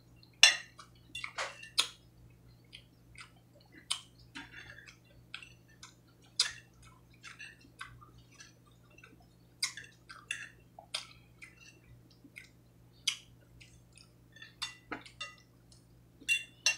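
Close-up eating sounds: a person chewing with wet mouth clicks and smacks, in short irregular bursts, with a fork now and then clicking against a china plate.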